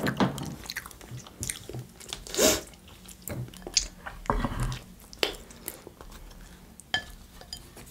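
Close-miked chewing and crunching of a mouthful of salad, with wet mouth sounds. A knock at the very start, and near the end a metal fork clicks as it digs into a glass salad bowl.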